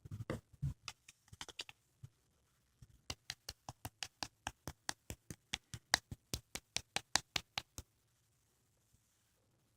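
A spoon tapping on bouncy konjac jelly: a few uneven taps, then after a short pause a quick, even run of taps at about five a second that stops about two seconds before the end.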